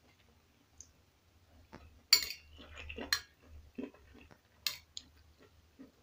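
Metal spoon clinking and scraping against a ceramic plate while scooping fried rice: a few sharp clinks, the loudest about two seconds in, others about a second later and near the end.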